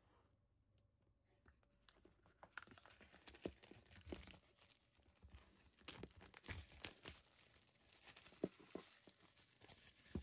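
Clear plastic wrap being peeled and torn off a cardboard product box: faint crinkling with scattered small crackles and clicks, starting about two seconds in.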